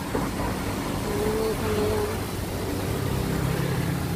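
Steady low hum of a motor vehicle's engine, getting louder about three seconds in, with two short higher tones between one and two seconds in.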